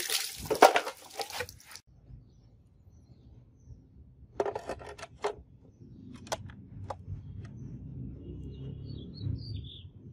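A sharp knife blade slicing through a water-filled plastic bottle, water splashing and spilling, for the first couple of seconds. Then a few light plastic clicks from a digital kitchen scale being set down and its buttons pressed, and a bird chirping briefly near the end.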